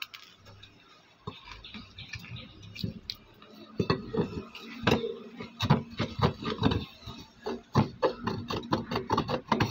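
Irregular metallic clicks, taps and knocks from a fan motor's stator and metal housing being handled and worked with a small hand tool during reassembly. Sparse at first, then busy from about four seconds in.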